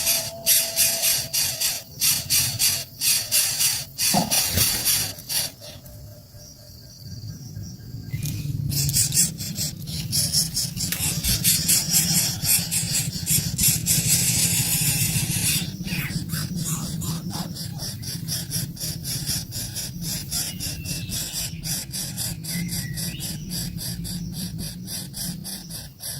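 Baby birds in the nest begging for food: fast, repeated high-pitched squealing calls, with a short lull about six seconds in before the calling starts up again.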